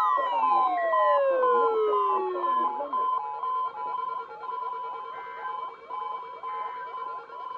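Electronic emergency-alert tones: a long falling glide over the first few seconds, laid over a fast repeating pattern of short beeps and downward swoops.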